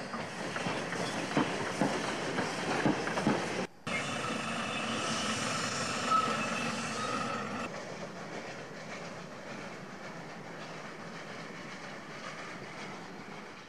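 Steam train running on the track, with rattling and clicking for the first few seconds and a momentary cutout about four seconds in. After that comes a steadier rushing noise with a faint high squeal, gradually fading toward the end.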